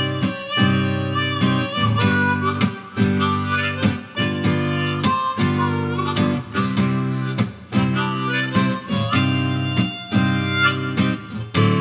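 Harmonica playing a melodic solo over strummed chords on a Cole Clark acoustic guitar, a slow folk-blues instrumental break with no singing.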